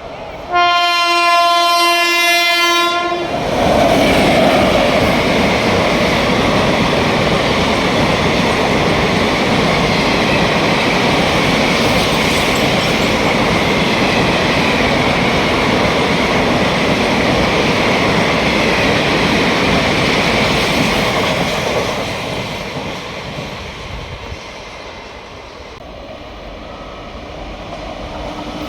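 An Indian Railways WAP-7 electric locomotive sounds its horn in one steady blast of about two and a half seconds, then the express train rushes past at speed with loud, steady wheel and rail noise that dies down about three-quarters of the way through.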